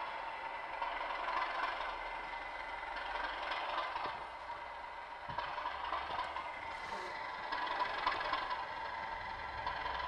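Sound-fitted OO-gauge model Class 37 locomotive creeping at low speed, its sound decoder playing diesel engine sound through a small onboard speaker. A few light clicks come from the wheels running over the diamond crossing.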